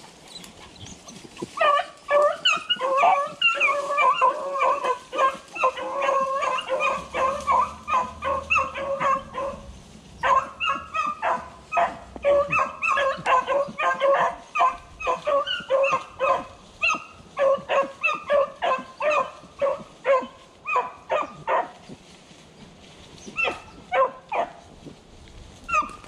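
A pack of beagles baying on a rabbit's trail: many short bays from several hounds overlap in a rapid, dense chorus, the sign that the hounds are running the rabbit's scent. The chorus breaks off a few seconds before the end, leaving a few last bays.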